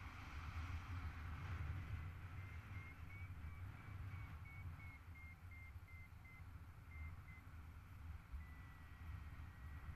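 Paragliding variometer beeping in short pulses, about two a second, its pitch dropping slightly, then holding one steady tone near the end, over the low rush of wind on the microphone in flight.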